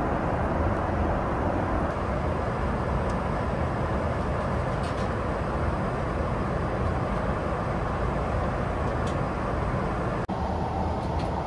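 Steady rushing cabin noise of a Boeing 777-300ER in flight, with a few faint light clicks. The sound briefly drops out for an instant near the end.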